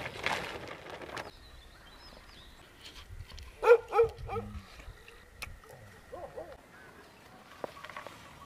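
An animal calling: two loud, short calls close together about four seconds in, then a few fainter calls.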